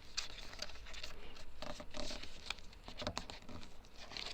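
Cardboard being handled, folded and creased by hand: irregular light scratches, rustles and taps.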